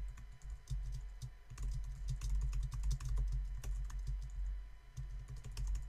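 Typing a sentence on a computer keyboard: a quick, uneven run of key clicks.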